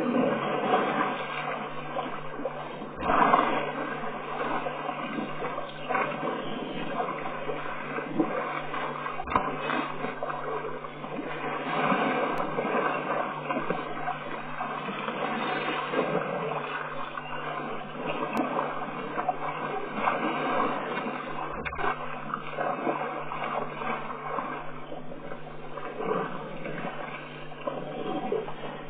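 Elephants wading and drinking in a waterhole: water sloshing and splashing over a steady rushing background, with a few dull knocks.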